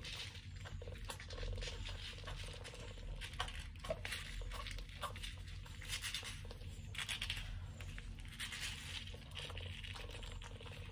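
Mother cat licking and grooming a kitten at close range: irregular soft wet licking and fur-rustling noises with small clicks as the kittens shift and nurse.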